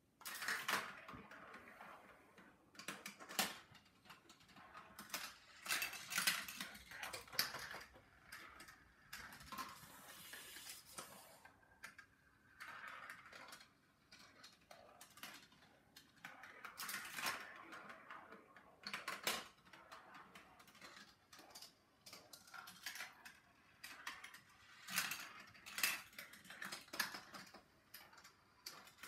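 GraviTrax marble run in action: steel balls rolling and rattling along plastic rails and tracks. They clack through switches, splitters and levers and drop onto pieces below, in repeated bursts of clatter with sharp clicks.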